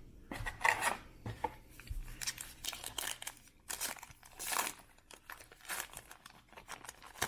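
A baseball-card pack wrapper being torn open and crinkled by hand: a run of irregular crackling and rustling.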